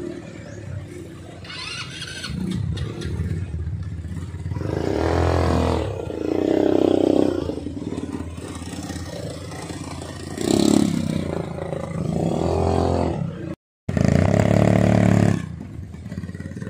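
ATV (quad bike) engines running and revving in repeated swells that rise and fall in pitch. The sound cuts out for a moment about two-thirds of the way through.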